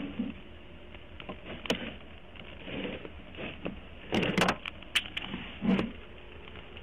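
Scattered clicks, knocks and rustles of objects being moved about in an SUV's cargo area during a search, with a quick cluster of knocks about four seconds in, over a faint steady hum.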